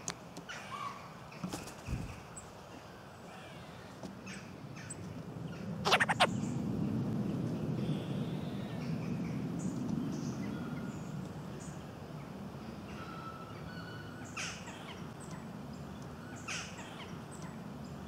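Woodland bird sounds: scattered short, high chirps from small birds. About six seconds in there is a quick run of sharp taps, followed by a low rumble that swells and then slowly fades.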